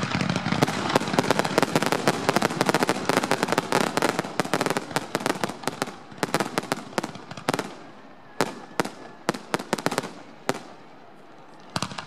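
Aerial fireworks shells bursting in a dense run of rapid crackles and bangs, thinning after about six seconds to separate sharp reports. A short lull comes near the end, then more bangs.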